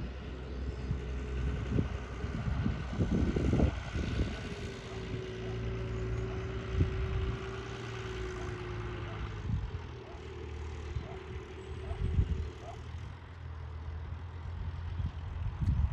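Tractor diesel engine running steadily as it drives across the field, with a steady whine in the middle for about five seconds, and gusts of wind on the microphone.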